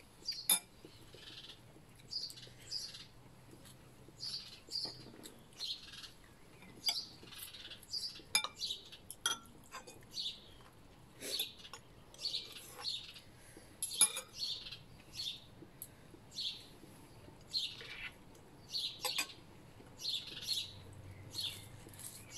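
Songbirds singing, short chirping phrases repeated about once a second, with a few sharp clinks of a spoon and fork on a plate.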